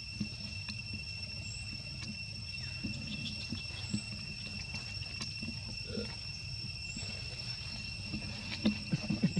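Steady high-pitched insect drone, with a faint short high chirp now and then, and scattered soft rustles and thumps, a few louder ones near the end.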